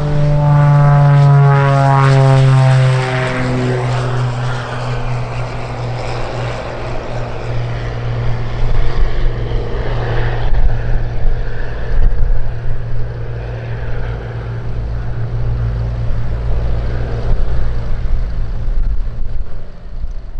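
Twin turbocharged six-cylinder piston engines and propellers of a Cessna 414A Chancellor at take-off power. The pitch falls as it passes close by on the take-off roll, loudest in the first few seconds, then a wavering drone as it climbs away.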